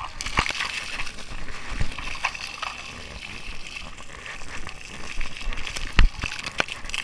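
Splash-park water jets spraying and splattering, with a few sharp knocks scattered through; the loudest knock comes about six seconds in.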